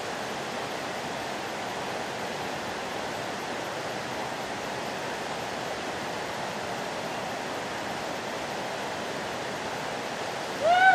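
Steady rush of a shallow river running over rocks. Just before the end, a short, louder voice sound that rises and falls in pitch.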